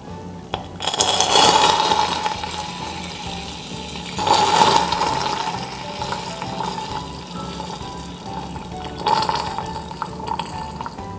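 Hot microwaved caramel sugar syrup in a ceramic cup hissing and sputtering as a spoonful of water is added: the water flashes to steam on the very hot syrup. It comes in three surges, about a second in, about four seconds in and about nine seconds in.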